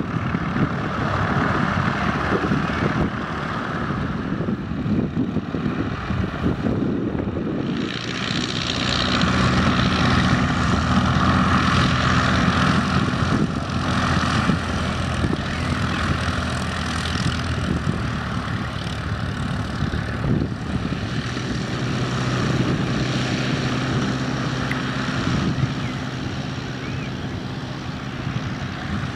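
Light propeller aircraft on a grass airfield, de Havilland Chipmunk trainers and a vintage biplane, their piston engines running in a steady drone. The engine note grows stronger and clearer about eight seconds in, eases briefly around twenty seconds, then comes back.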